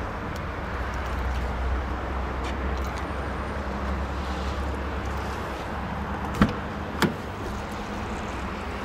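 Brilliance H530 sedan idling steadily with a low hum. About six seconds in come two sharp clicks, half a second apart, as the driver's door handle is pulled and the door unlatches and opens.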